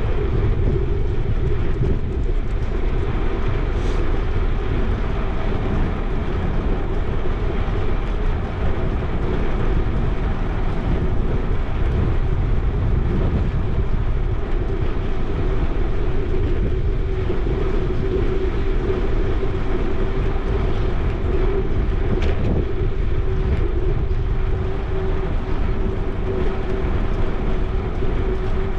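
Steady wind rush on an action camera's microphone while cycling, with the rolling noise of a bicycle on a paved bike lane and a steady low hum underneath.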